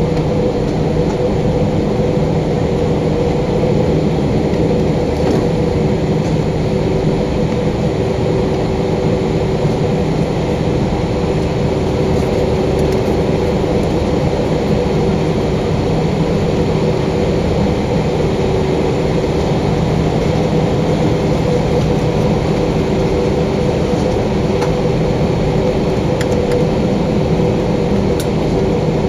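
Steady cabin noise inside an Airbus A320, with its jet engines running and the cabin air supply. An even rush carries several constant low tones, with no change in pitch or level.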